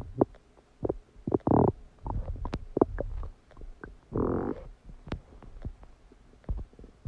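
Human stomach digesting a cheeseburger: irregular gurgles, pops and short squelches, with a longer bubbling rumble about four seconds in.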